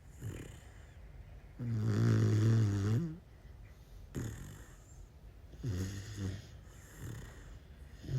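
Cane Corso puppy snoring: one loud, long snore about a second and a half in, then softer, shorter snores every second or two.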